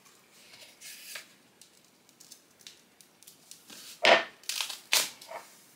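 Books being lifted off stacks of glued notepad paper and handled on a table: soft paper and cover rustles, then a few louder knocks and scrapes of books about four and five seconds in.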